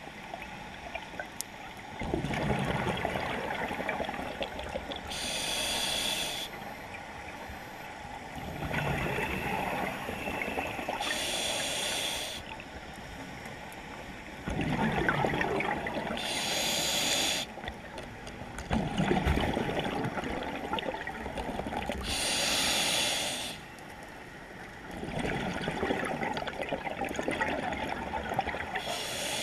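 Scuba regulator breathing underwater: a short hiss of inhaled air through the regulator, then a longer gurgling rush of exhaled bubbles. The cycle repeats about every six seconds, around five breaths.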